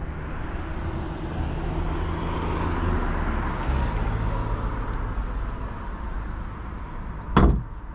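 A steady low rumble and hiss, then about seven seconds in a single loud thud: the front trunk (frunk) lid of a Tesla Model 3 being shut.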